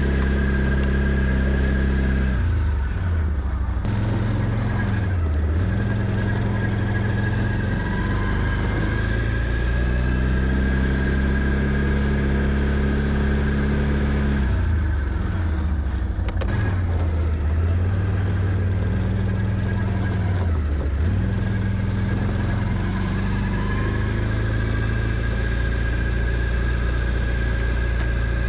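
Can-Am Outlander 650 ATV's V-twin engine running while plowing snow, its revs dropping sharply and climbing back several times as it works back and forth.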